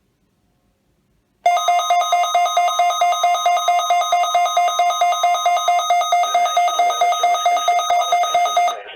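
NOAA Weather Radio emergency alert tone: a loud, steady single-pitched alarm tone that starts about a second and a half in, holds for about seven seconds with a slight rapid waver, and cuts off near the end. It is the attention signal that follows the SAME data header and comes before a spoken snow squall warning.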